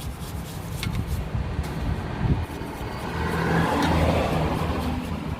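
Washing out a wheel hub to clear the old bearing grease: a hiss of spray swells about three seconds in and fades near the end, over a steady low motor rumble.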